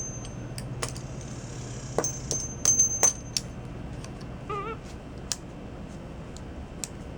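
Small metal hand tools and hardware clicking and clinking as a capuchin monkey works a bolt with pliers: scattered sharp clicks, the loudest cluster about two to three seconds in, with a thin high metallic ring over the first few seconds.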